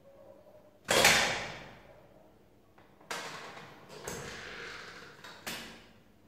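Floor-standing lever wine corker being worked: one loud clack about a second in that rings out briefly, then three lighter clacks as the lever is pulled down and let back up.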